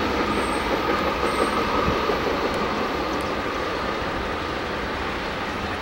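Freight cars of a CSX manifest train rolling by on curved track: a steady rumble and clatter of steel wheels on rail, slowly fading as the end of the train passes.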